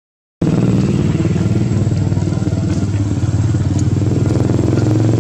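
Small motorcycle engine running close by, loud and steady with a fast low pulsing; it cuts in abruptly about half a second in.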